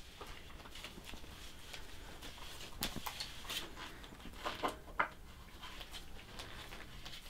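A Teflon-taped brass adapter fitting being threaded into a water filter head by hand, turned backwards to catch the start of the thread: faint scraping with a handful of small sharp clicks in the middle.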